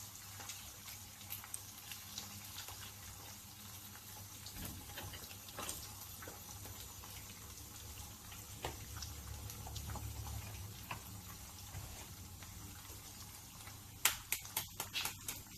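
Eggs frying in a non-stick pan, a steady sizzling hiss with faint scattered clicks. Near the end comes a quick run of sharp taps.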